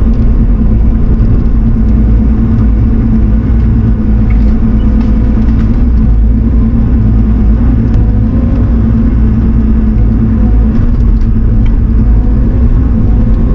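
Heavy equipment's diesel engine running steadily at a constant speed, heard loud from inside the operator's cab.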